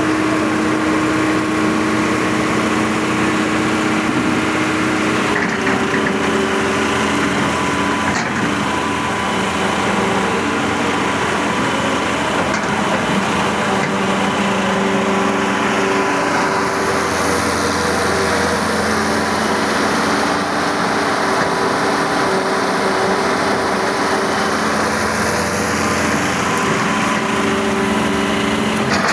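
Excavator's diesel engine running steadily, its note shifting about five seconds in and the sound changing again between about sixteen and twenty-seven seconds.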